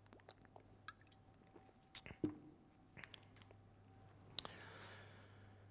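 Near silence in a lecture room: a low steady hum with a few faint clicks and, about four and a half seconds in, a short soft rush of noise.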